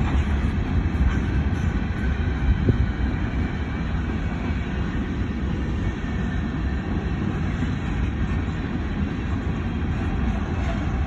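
Coal hopper cars of a freight train rolling past on the track, giving a steady, continuous noise of the passing cars.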